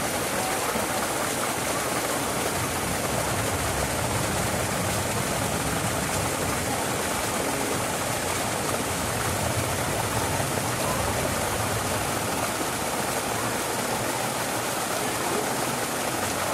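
A steady, even rushing noise, like running water, with no change in level.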